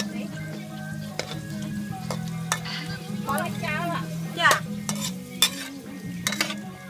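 A metal spatula scrapes and clacks against an aluminium wok as small whole fish are stir-fried, over the hiss of sizzling oil. A steady low hum runs underneath, and a brief warbling sound passes in the background around the middle.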